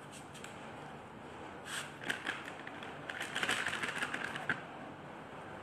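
Light clicks and scrapes from a glass jar of carob molasses being handled and tipped over a bowl. There are a few clicks at first, then a busy run of them from about two to four and a half seconds in.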